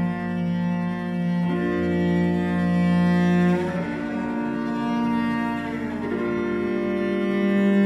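Cello playing a slow line of long held notes, moving to a new note about every two seconds, in a recomposed arrangement of a 1950s–60s Taiwanese pop song.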